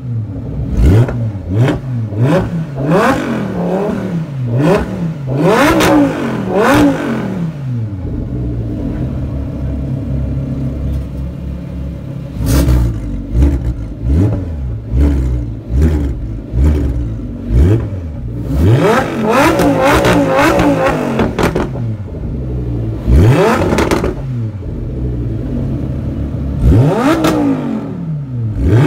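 Audi R8 V10 Plus's 5.2-litre V10 with a Capristo exhaust being revved while parked: clusters of quick, sharp throttle blips, settling to a steady idle for a few seconds near the middle before the blips start again, including one longer held rev.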